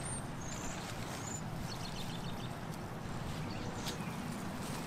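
Dyneema tent fabric rustling and crinkling as the tent is collapsed and unstaked, over a steady low outdoor rumble, with a few faint high bird chirps in the first second or so.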